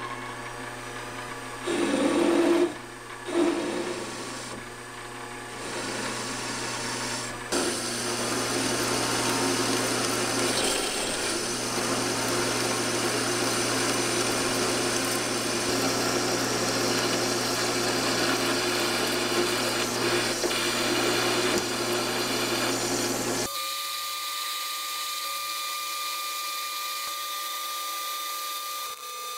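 Benchtop metal lathe running with a cutting tool taking a cut in a spinning metal workpiece: a steady motor hum under dense scraping cutting noise, with two louder bursts about two to three seconds in. About six seconds before the end the cutting noise drops away, leaving the motor hum and a steady high tone.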